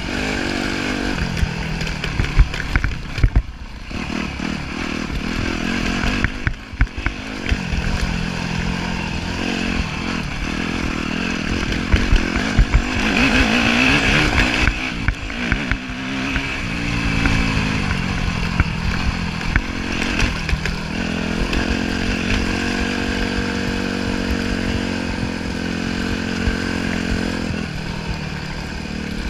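Yamaha YZ250F four-stroke single-cylinder dirt bike engine heard from onboard, revving up and down as the rider works the throttle and gears, climbing hardest about thirteen seconds in. Scattered knocks and rattles cut through the engine.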